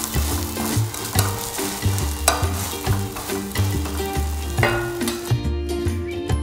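A Korean potato pancake (gamjajeon) sizzling as it fries in a cast iron skillet, with a few sharp scrapes of a metal spatula, over background music with a regular bass line. The sizzle drops away about five seconds in, leaving the music.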